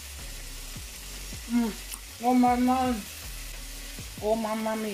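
Saltfish and vegetables sizzling in a nonstick frying pan while a wooden spoon stirs and scrapes through them. A woman's voice makes a long drawn-out sound about halfway through, the loudest thing here, and says "oh my" at the end.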